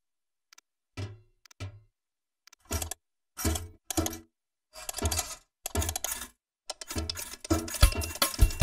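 Cartoon sound effects of a crank handle being turned: short separate cranking sounds with gaps between them, coming closer together, then about three-quarters of the way in a fast rhythmic tune with a beat starts up.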